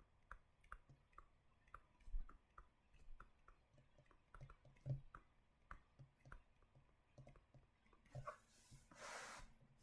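Near silence with faint, scattered small clicks and ticks, and a soft breath about nine seconds in.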